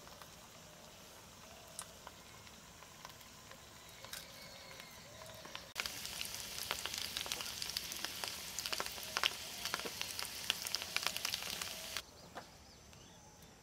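Battered fritters frying in hot oil in a miniature steel kadai: steady sizzling full of fine crackles, starting about six seconds in and cutting off suddenly about six seconds later.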